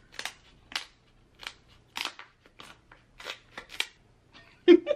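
Shell of a giant king crab leg being cut open: a series of short, sharp snips and cracks, about a dozen, unevenly spaced. A brief louder sound near the end.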